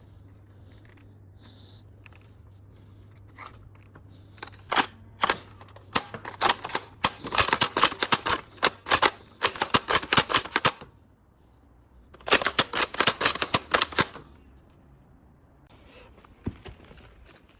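Toy foam-dart blaster firing: a few single sharp clacks, then two long runs of rapid shots a second apart, the first lasting about five seconds.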